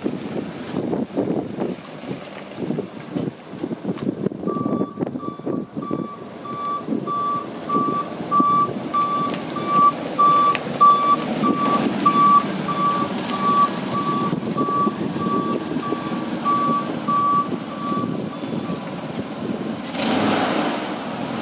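A vehicle's back-up alarm beeping steadily, about twice a second, starting a few seconds in and stopping near the end, over a steady rumbling noise.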